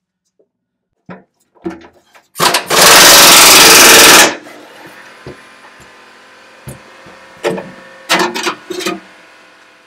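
Impact wrench hammering on a bolt for about two seconds, very loud, then a few scattered metal clanks and knocks.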